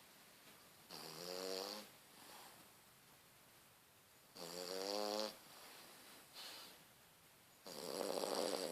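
A sleeping pet snoring: three loud, drawn-out snores about three and a half seconds apart, each lasting about a second, the first two with a pitched rattling tone, and softer breaths between them.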